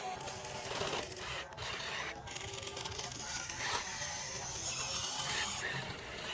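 Continuous scraping and rasping, the sound of a radio-controlled model excavator at work.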